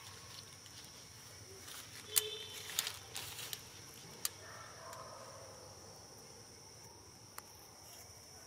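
Steady high-pitched insect drone in forest, with a few sharp clicks between about two and four seconds in and a faint short call near five seconds.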